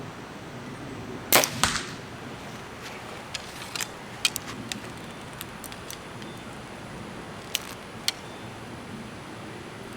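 Compound bow firing off a hinge release, with a sharp crack, then the arrow striking the target about a third of a second later. Several lighter clicks follow.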